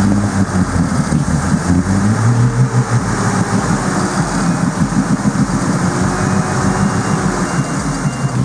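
Engine of a bogged Toyota Land Cruiser 40-series running hard under load, its revs rising and falling, with a rushing churn over it as the wheels work through swamp mud and water while it is winched out.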